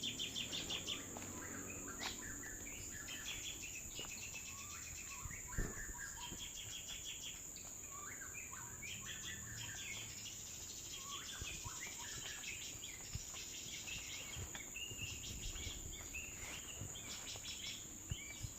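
Small birds giving short, scattered chirps and twittering calls over a steady high-pitched insect drone.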